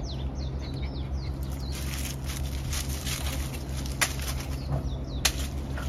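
A bird calling in a quick run of short falling chirps over the first couple of seconds. Then rustling in dry fallen leaves with two sharp clicks, about four and five seconds in, over a steady low hum.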